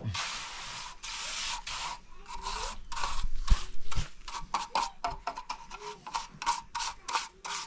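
Steel hand trowel scraping across wet cement mortar as a floor is smoothed, in long strokes at first and short, quicker strokes in the second half, with a couple of dull knocks near the middle.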